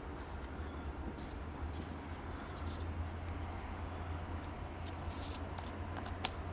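Gloved fingers smearing JB Weld epoxy over a bird bath repair, giving soft rubbing and small scratching sounds, with one sharp click near the end. A steady low rumble runs underneath.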